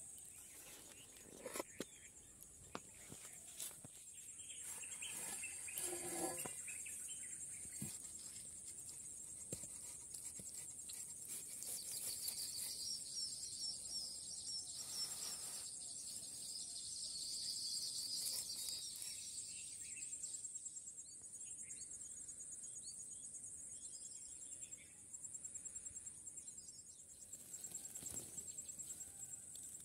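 Insects, like crickets, chirping in a steady, high-pitched drone. A second, lower-pitched insect buzz swells for several seconds midway, and there are a few light knocks and clicks near the start.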